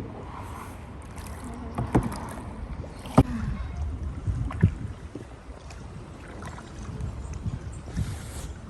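Two-seat kayak being paddled: paddle strokes in the water with a few sharp knocks, the loudest about three seconds in.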